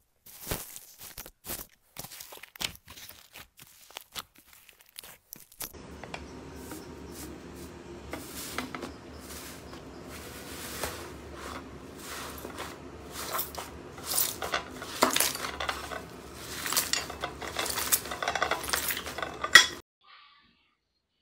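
Slime handled by hand: a bubbly, foamy purple slime is poked and stretched, giving sparse sharp crackles and pops. About six seconds in, a pink slime is pressed flat under both palms, and the crackles and pops come denser and louder over a steady low hum until they stop shortly before the end.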